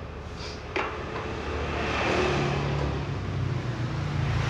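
A sharp knock under a second in, then an engine running with a steady low hum that grows louder about two seconds in.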